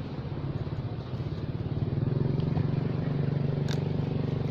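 A motor engine running steadily with a low, rapidly pulsing hum that grows louder about two seconds in.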